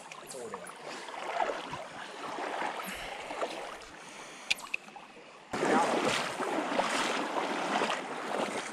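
Shallow stream water rushing and rippling over riffles. It turns suddenly louder about five and a half seconds in, with a couple of brief sharp clicks shortly before.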